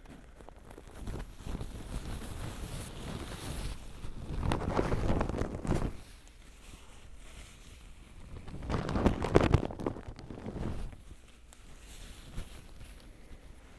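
ASMR trigger sounds made right at the microphone: scratchy rubbing noise rising into two long, louder swells, around four to six seconds in and again around nine to ten seconds in, over a softer rustle.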